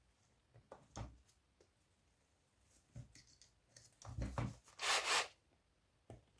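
Small clicks and knocks of metal parts and tools being handled on a workbench, with a few dull thumps and a short scraping rasp about five seconds in.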